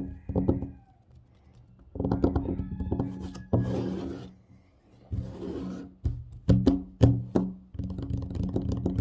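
Fast fingertip and fingernail tapping on a hollow-sounding table, in quick rapid runs, broken by scratching across the surface twice in the middle and a few single hard knocks. The rapid tapping starts again near the end.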